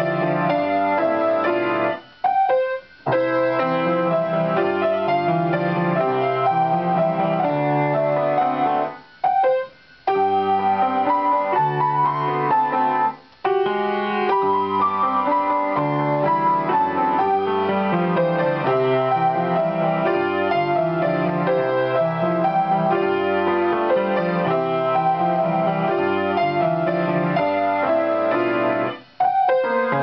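Piano played four hands, a waltz for piano duet, with the music stopping dead for a moment several times (about two, three, nine, ten, thirteen and twenty-nine seconds in) before carrying on.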